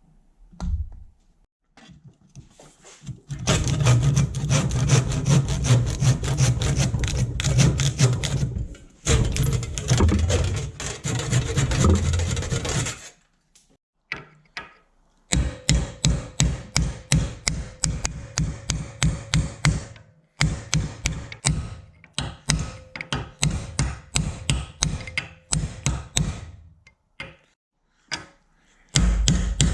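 Back-and-forth strokes of a hand tool working on an old ball peen hammer. A fast, continuous scrubbing run lasts about ten seconds, then a pause, then slower, even strokes about two a second.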